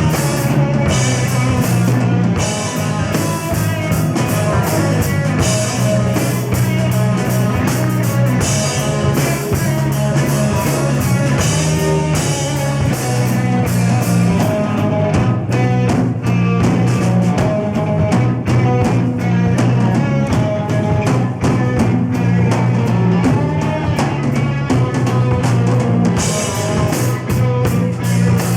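Live rock band playing an instrumental passage: electric guitar, bass and a full drum kit, with no singing.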